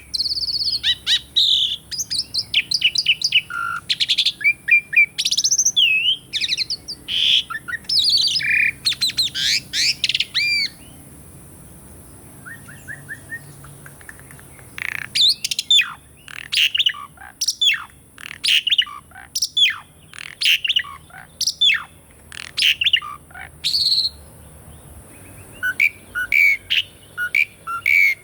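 Pied starling (jalak suren) singing: a varied run of loud whistles and rising and falling sweeps, a pause of about four seconds, then a fast series of sharp notes, and short chirps near the end.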